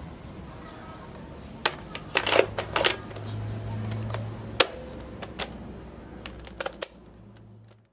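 Hard plastic clicks and clacks as the top-mounted magazine of a Classic Army P90 airsoft electric gun is fitted and latched into the receiver: a quick cluster of clacks about two seconds in, a single sharp click about halfway through, then a few lighter clicks, over a low steady hum.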